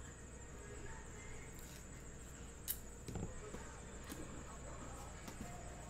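Quiet room with a steady hum, a single light click a little under three seconds in, then faint handling noise of a paper tab and a cardboard card box.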